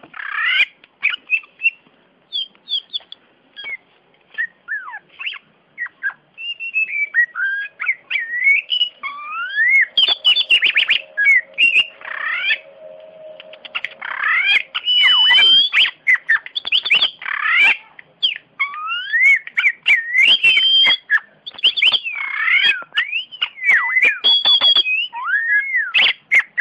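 Oriental magpie-robin (kacer) singing a loud, continuous, varied song of whistled notes that glide up and down, with quick clicking notes in between.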